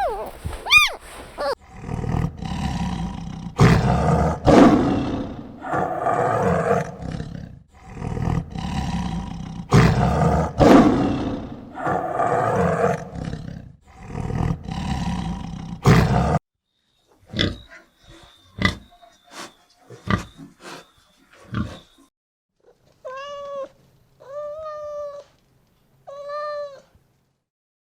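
An animal giving loud, rough roars and growls over and over, each a second or two long, followed by a few sharp clicks and then three short pitched cries near the end.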